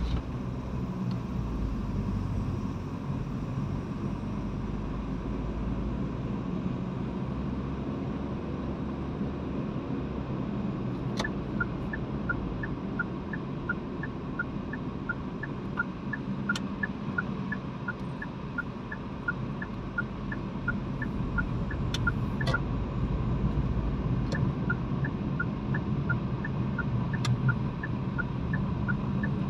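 Car engine and tyre noise heard from inside the cabin while driving slowly. The turn-signal indicator ticks at about two a second from about a third of the way in, stops briefly, then resumes, with a few sharp clicks in between.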